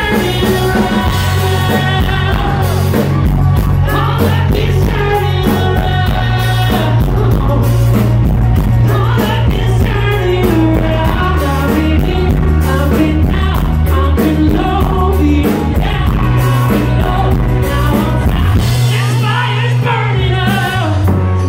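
A rock band playing live: a male lead voice singing over electric guitar, bass and drums, loud and heavy in the bass.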